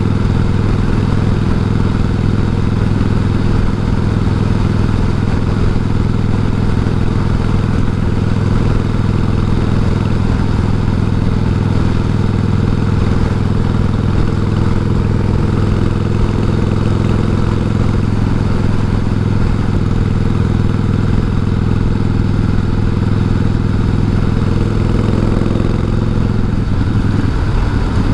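1988 Harley-Davidson Heritage Softail's Evolution V-twin engine running steadily at cruising speed, with steady wind rush, heard through a helmet microphone. The engine note dips near the end as the bike slows.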